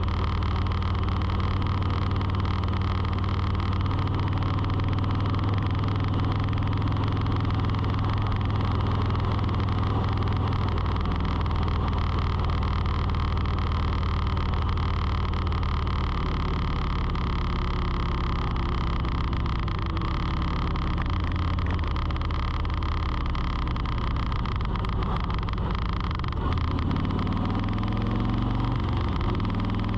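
An engine or motor running steadily with a low hum whose pitch shifts a few times, gliding briefly near the end, over a steady rushing noise.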